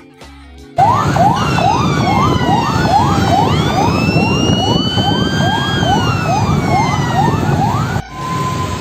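Emergency vehicle sirens: a fast, repeating rising whoop, about two a second, over a slower wail that rises and then falls, with steady road noise beneath. It starts suddenly about a second in and cuts off near the end, leaving a quieter steady tone.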